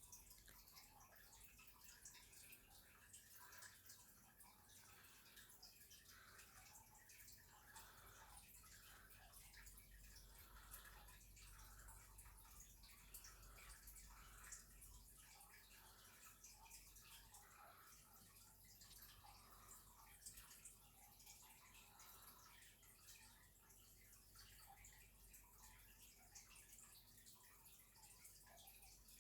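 Near silence: faint room tone with light, scattered small ticks.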